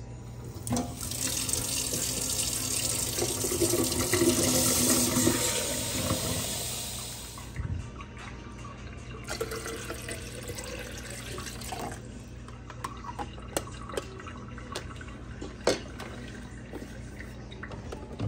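Kitchen tap running into a plastic container for about seven seconds, swelling then fading, followed by water being poured into a coffee machine's reservoir. Several light plastic clicks and knocks come near the end as the machine is handled.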